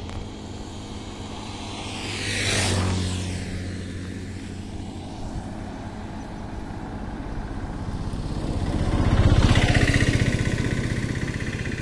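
Two motor vehicles passing by on a highway, each swelling and then dropping in pitch as it goes past: one a few seconds in, and a louder one with a low engine beat near the end.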